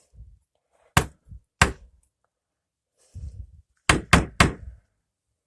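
Sharp knocks of a pen body struck against a hard surface: two single knocks about a second apart, then a quick run of three near the end, with softer low thuds between.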